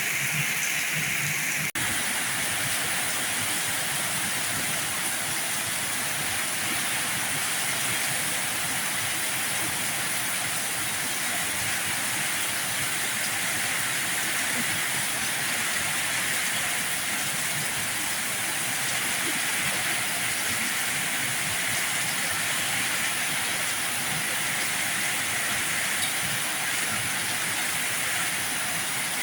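Heavy rain falling as a steady, even hiss, with a brief cut in the sound about two seconds in.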